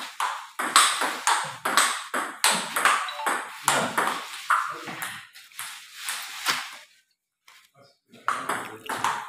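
Table tennis ball being hit back and forth in a rally, sharp clicks of ball on paddle and table at about two to three a second. The hits stop for about a second near the end, then start again.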